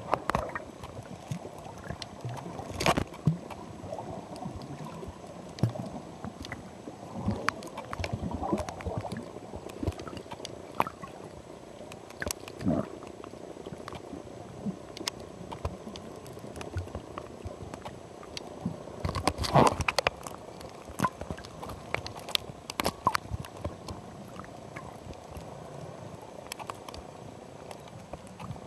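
Muffled gurgling water with scattered clicks and pops. A louder cluster of pops comes about three seconds in, and a longer one around twenty seconds in.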